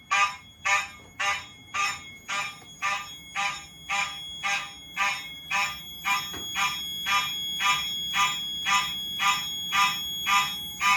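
Fire alarm horns sounding in march time, pulsing on and off about twice a second, with the pattern timed by a relay timer module. A steady high tone runs beneath the pulses.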